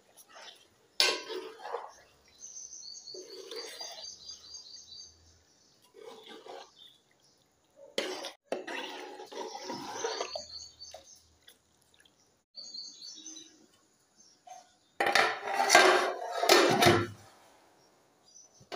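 Metal ladle stirring chunks of liver in an aluminium pot, scraping and clinking against the metal in several separate bouts. The loudest bout comes about fifteen seconds in.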